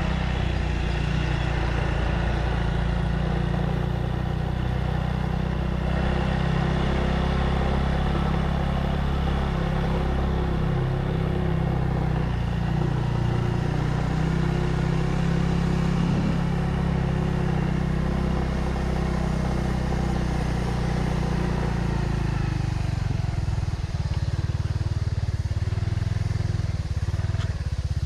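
Motorcycle engine running steadily while under way. Near the end the engine note drops lower and turns uneven.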